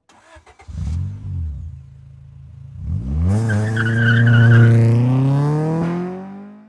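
Car engine revving, then accelerating with its pitch climbing steadily, with a wavering tyre squeal partway through. It starts with a few clicks and fades out near the end.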